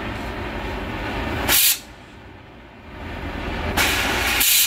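Oxy-acetylene cutting torch flame hissing steadily. Twice the cutting-oxygen lever is pressed and a louder rushing blast comes from the tip: briefly about one and a half seconds in, and for about a second near the end, cutting off sharply.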